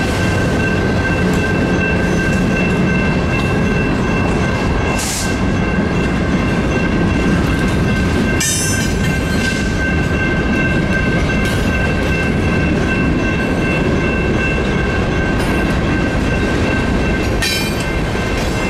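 Freight cars rolling through a road crossing with a continuous rumble and clickety-clack of wheels over the rail joints, the crossing bell ringing steadily. A few brief high-pitched squeals break in, about a quarter of the way through, near the middle and near the end.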